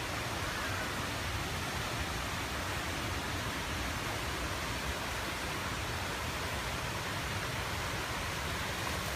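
Steady, even rushing outdoor background noise with no distinct events.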